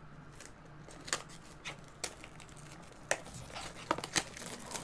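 Plastic shrink wrap being picked at and torn off a small cardboard blind box: scattered crinkles and sharp clicks, with a few louder snaps in the second half.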